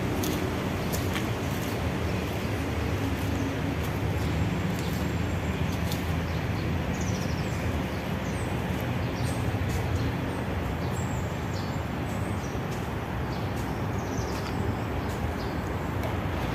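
Steady traffic noise with a low hum, with a few short bird chirps scattered through it.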